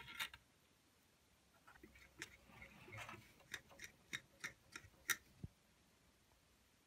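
A run of small, sharp clicks and taps from hands handling water-cooling parts inside a PC case, a few right at the start and then a quicker series of about three a second in the middle.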